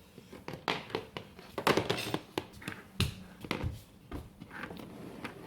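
Small plastic toy figures and playset pieces being handled and set down, making irregular light taps and clicks.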